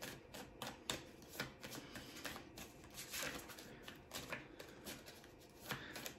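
Faint, irregular flicks and light taps of an oracle card deck being shuffled overhand, cards slipping and tapping against each other a few times a second.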